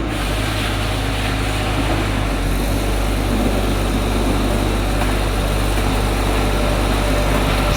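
Small diesel engine of a portable hydraulic baler running steadily.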